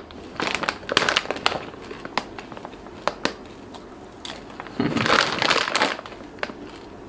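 Crisp spicy kerepek chips crunched and chewed close to the microphone: a quick run of sharp crunches in the first second and a half, then softer chewing crackle. A louder, crinkly burst comes about five seconds in.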